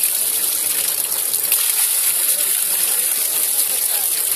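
Small decorative waterfall, a thin stream of water falling over rocks and splashing steadily into a pool.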